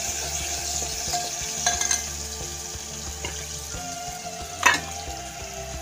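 Ginger-garlic paste sizzling in hot oil, stirred with a steel spoon, with a few sharp clinks of the spoon against the pot, the loudest about four and a half seconds in.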